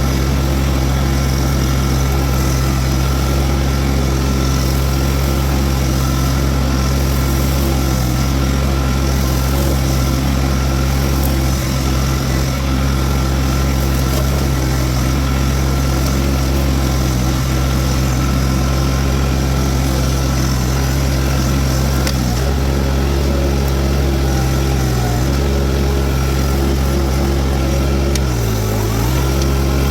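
Diesel engine of a Toro TX1000 mini skid steer running steadily while it drives a Virnig V20 brush mower. The engine pitch dips briefly twice near the end.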